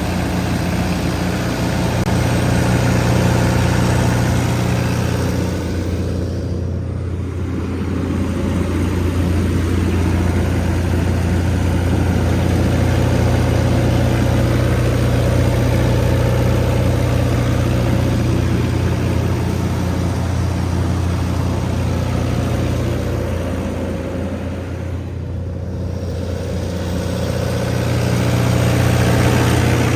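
Diesel generator set with an Isuzu 4LE1 four-cylinder diesel engine running steadily at its 1800 rpm governed speed, a steady hum with a hiss of fan and exhaust noise above it. The hiss dips briefly twice, about 7 and 25 seconds in.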